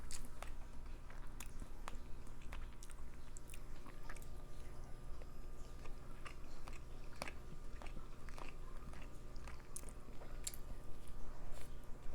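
Close-miked eating: chewing and biting with irregular wet mouth clicks and smacks, several a second.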